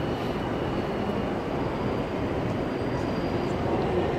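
Steady echoing din of a busy railway station hall, with faint distant voices of the crowd.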